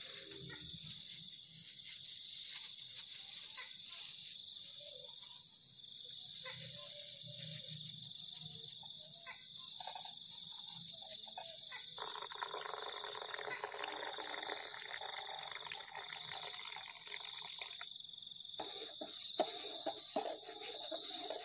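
A steady high-pitched chorus of night crickets and other insects runs throughout. Over it, a pour into a metal mug lasts about six seconds, and near the end a spoon clinks against the mug as the drink is stirred.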